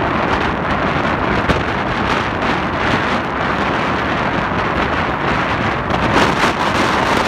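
Wind rushing over the microphone at the open window of a moving passenger train, over the train's steady running noise on the track. It gets louder for a moment about six seconds in.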